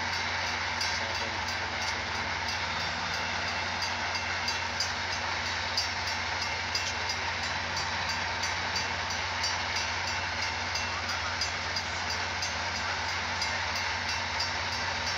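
Diesel locomotive of a stopped Metra commuter train idling with a steady low hum, with a faint regular ringing about three times a second from the grade-crossing signal.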